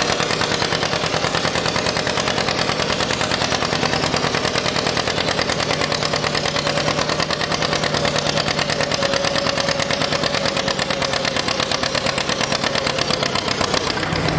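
John Deere two-cylinder tractor engine working under load as it drags a weighted pulling sled, its exhaust a fast, even beat of pulses.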